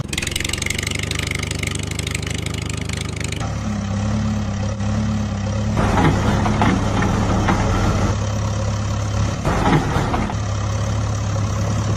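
A diesel tractor engine idling, a steady low throb that changes abruptly a few times. Between about six and ten seconds in, a few short scrapes and clatters of soil and stones.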